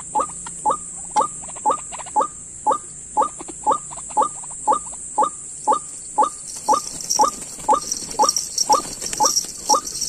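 White-breasted waterhen (ruak-ruak) calls: a short, downward-sliding note repeated evenly about twice a second.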